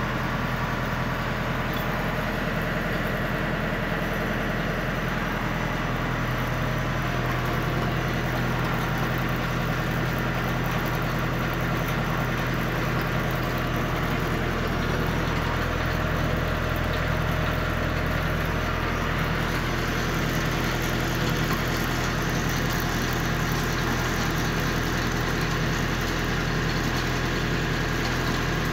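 Tractor engine running steadily with the PTO engaged, driving a shaft and belt that spin a steel winch drum. It makes a constant hum that does not change in speed.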